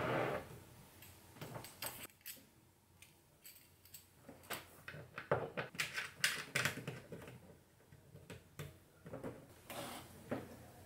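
Hand-handling noise of cable connectors being fitted: clicks and metal rattles as a plug goes onto a GX16 aviation socket on the controller enclosure and the stepper motor's lead connector is joined, with cable rustle. A short burst of noise at the very start; the clicking is busiest about five to seven seconds in.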